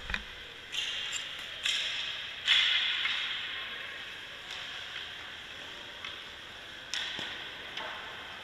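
Hockey practice on ice: a series of sharp knocks and scrapes from skates, sticks and goalie pads on the ice, about six in all, the loudest about two and a half seconds in, each trailing off in a hissing echo from the rink.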